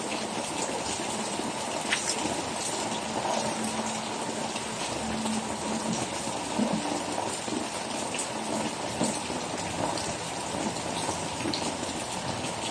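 Steady rain falling, with many scattered drops ticking sharply on hard surfaces.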